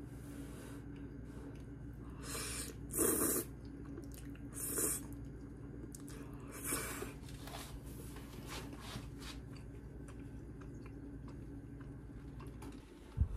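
A person eating spaghetti, slurping and chewing noodles in several short bursts, the loudest about three seconds in, over a steady low hum. A dull knock comes near the end.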